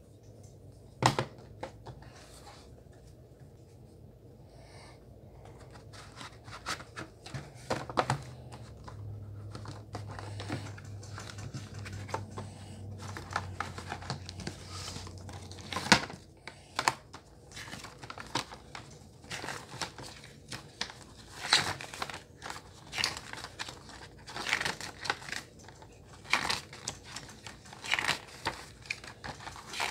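A plastic DVD case and its paper insert booklet being handled: paper rustling and crinkling as pages are turned, with sharp clicks and snaps from the case, the loudest about a second in and about halfway through. A low hum sits underneath for a few seconds in the middle.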